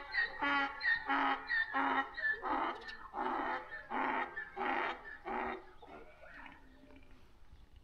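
An animal calling in a quick run of about a dozen short calls, roughly two a second, that fade away about six seconds in.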